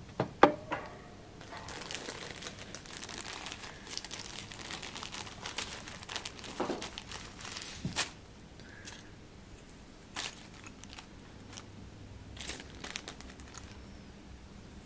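Pet rats gnawing and scrabbling at a wooden chew twig: crunchy, crackly scraping, busiest in the first half, with scattered sharp clicks.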